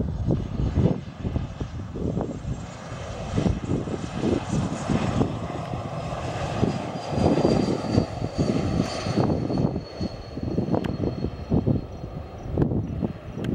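Airliner engines running at the airport, with a faint high whine that slowly falls in pitch through the middle, over an uneven, surging low rumble.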